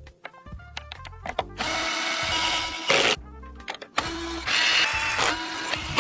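Background music in abrupt stop-start snippets, with a run of sharp clicks in the first second and a half.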